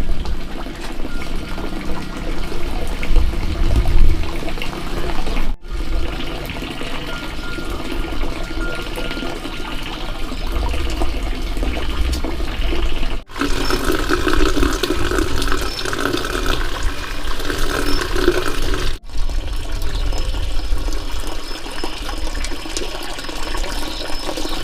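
Steady running, splashing water, broken off abruptly for an instant three times.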